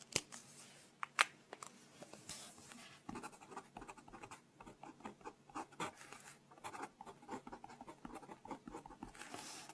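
Close-up pen writing on paper: light scratching strokes, with a couple of sharp taps in the first second or so.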